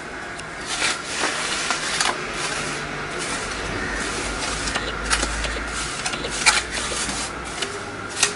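Gritty scraping and rubbing of a damp sand-and-cement mortar bed being spread and levelled by hand, with scattered sharp clicks of grit and small stones.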